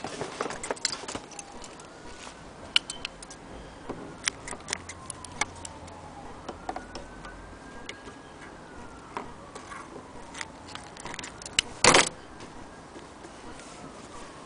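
Light clicks and snips of scissors trimming thread and of fabric being handled at a sewing machine, with one louder short clatter near the end.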